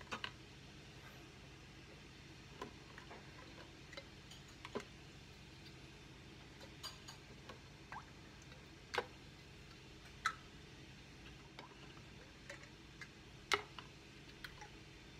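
Scattered light clicks and clinks of metal canning lids and screw bands being set and turned onto glass mason jars, over a faint low hum.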